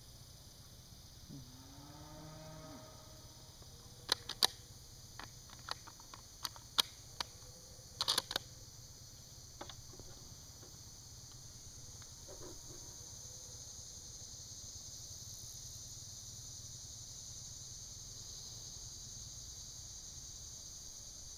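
Clicks and knocks of a scoped .30-06 rifle being picked up and readied at a shooting bench, several sharp ones in a quick cluster about eight seconds in. A low call rises and falls once near the start, and a steady high insect buzz grows stronger in the second half.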